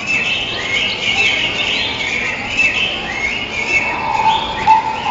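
Bird-like chirping: short, high gliding calls repeating in phrases, with a steady held tone coming in about four seconds in.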